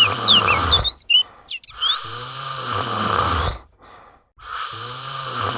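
Cartoon snoring sound effect: three long snores, each about two seconds, with short pauses between them. A few high bird chirps sound during the first second.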